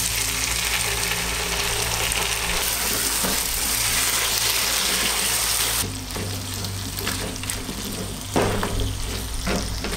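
Diced bell peppers and tomato paste sizzling in hot oil in a pot while a spatula stirs and scrapes them. The sizzle is steady at first; about six seconds in it drops a little and is broken by short stirring strokes.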